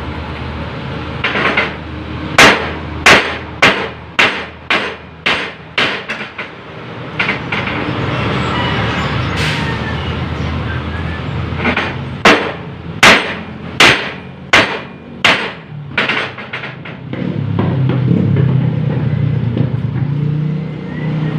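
Two runs of sharp hammer strikes, about two a second and eight or so blows each, over the steady running of an engine that grows louder near the end.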